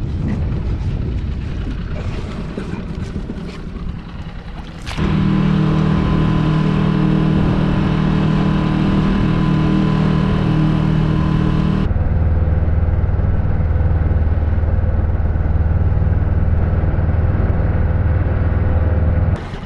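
A 4 hp Mercury four-stroke single-cylinder outboard motor running steadily under way, pushing a small dinghy. Its note drops lower about twelve seconds in; the first few seconds hold a rougher, more even noise before the engine tone comes in.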